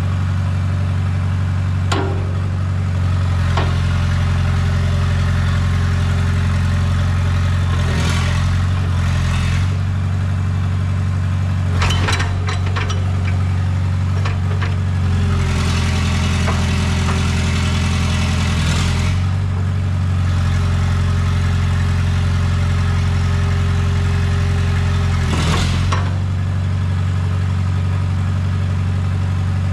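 Komatsu PC60-5 excavator's diesel engine idling steadily, with a few sharp clicks and two longer spells of louder hissing noise around the middle.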